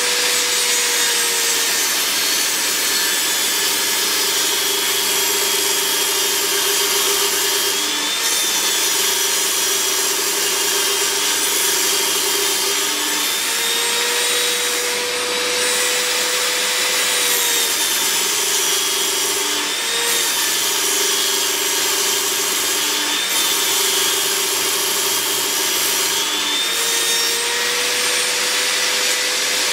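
Benchtop table saw running continuously while ripping wooden boards. Its whine drops in pitch each time the blade is loaded in the cut and climbs back between passes, several times over.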